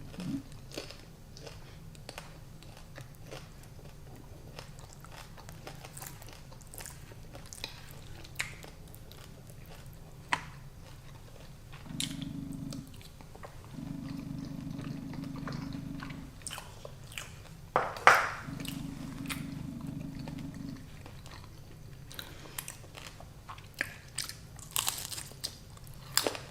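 A person chewing and biting food close to the microphone, with many short mouth clicks and smacks scattered through, one louder smack about eighteen seconds in.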